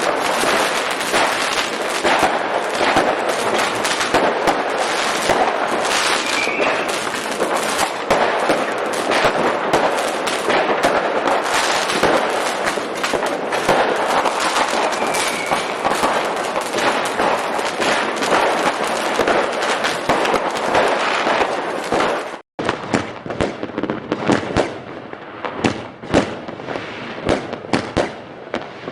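Fireworks going off: a dense, continuous barrage of crackling bangs, then, after a brief cut about 22 seconds in, separate bangs a fraction of a second apart.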